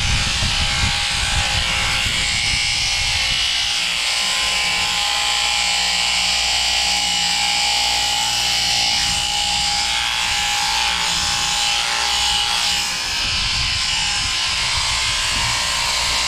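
Portable electric sheep-shearing handpiece running steadily, its cutter clipping through a lamb's wool.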